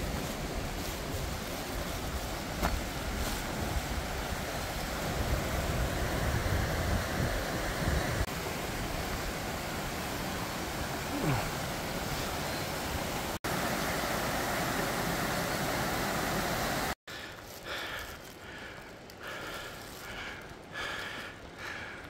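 Steady rushing of a rocky mountain river and stream, with low wind rumble on the microphone in the first half. A few seconds before the end it drops sharply to a much quieter background.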